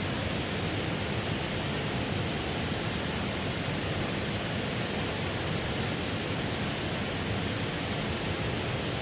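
Waterfall: a steady, even rush of falling water with no break.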